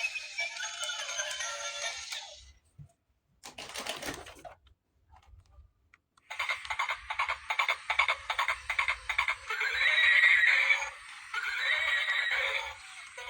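Music that cuts off about two and a half seconds in, a short burst of sound near four seconds, then music again from about six seconds in with a fast, dense beat.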